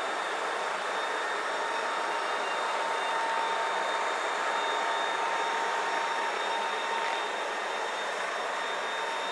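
Nilfisk UHB 51-1500 high-speed floor burnisher running, its round pad spinning on a polished concrete floor: a steady whirring hiss with a thin, constant whine.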